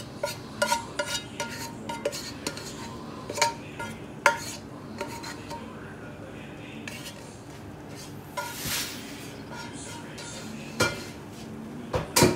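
Spatula with a nylon head scraping and knocking against a nonstick wok and a cooking pot, many quick clinks and taps as stir-fried chicken and vegetables are scraped out and stirred into rice noodles, with one longer scrape about two-thirds of the way through.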